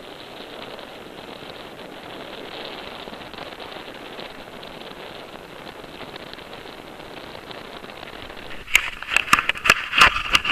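Steady rush of wind over the camera's microphone while hanging under a parasail, then, about nine seconds in, loud crackling and scraping clicks as the camera rubs and knocks against clothing.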